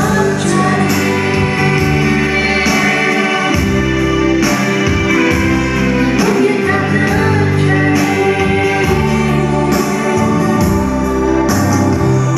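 Man and woman singing an Indonesian nostalgic pop song as a duet into microphones, over steady instrumental backing music.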